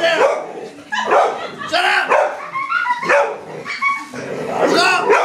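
A large dog barking repeatedly in short, separate barks, about one a second, as it jumps up at a person.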